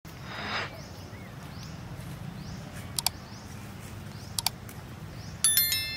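Subscribe-button animation sound effects: two quick double mouse clicks, then a bright electronic chime near the end.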